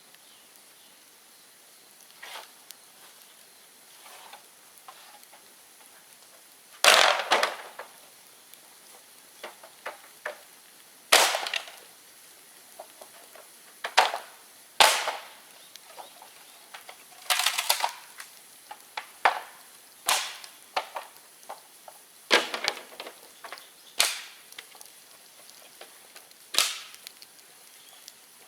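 A bonfire of dead bamboo crackling, with a dozen or so sharp pops and cracks at irregular intervals as the burning culms burst; the loudest come about 7 and 11 seconds in.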